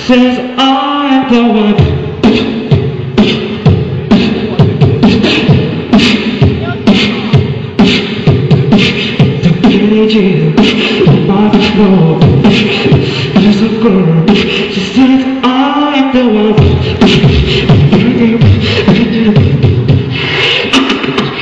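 Beatboxing: mouth-made drum and snare sounds in a steady beat, with a voice gliding up and down over a held hum.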